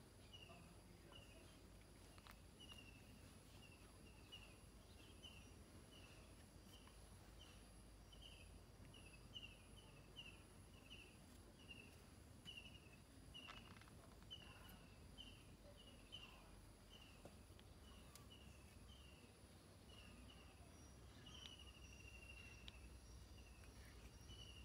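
Faint outdoor ambience: a small creature chirping a short high note over and over, somewhat under two a second, with one longer chirp near the end, over a steady faint high hum.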